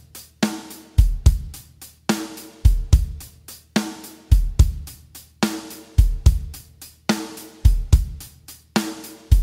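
Drum kit playing a steady Greek exari (εξάρι) rhythm in 6/8 at 72 BPM. Bass drum, snare and hi-hat repeat the same pattern about every second and two-thirds.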